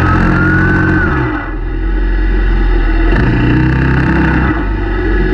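Quad ATV engine running under throttle. The throttle eases off about a second and a half in, and the engine picks up again shortly after.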